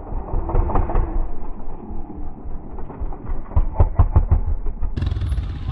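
Honda four-stroke trials motorcycle engine ticking over with a low rumble, then a quick run of sharp throttle blips about three and a half to four and a half seconds in as the bike is worked over the rocks.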